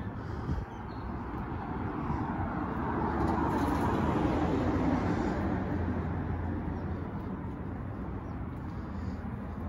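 Outdoor traffic noise: a vehicle going past on a nearby street, its sound building to a peak about four seconds in and then fading, over a steady low rumble.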